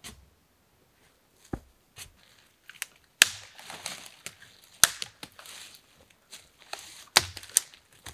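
Dry pine branches snapped by hand: several sharp, loud cracks a second or two apart, with crackling and rustling of twigs and needles between them.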